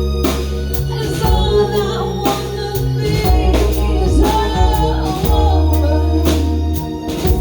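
Tribute band playing a song: a sung melody over a steady drum beat, sustained bass notes and an organ-like keyboard.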